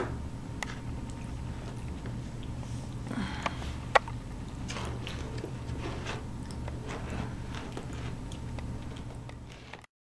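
A small child chewing a cookie: soft mouth sounds and scattered small clicks over a steady low hum, with one sharp click about four seconds in. The sound cuts off just before the end.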